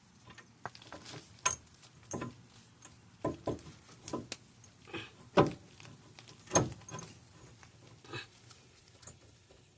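Scattered knocks and clinks of metal car parts being handled, as a new wheel bearing is tried for fit in its rust-cleaned housing. The sharpest knocks come about one and a half, five and a half and six and a half seconds in.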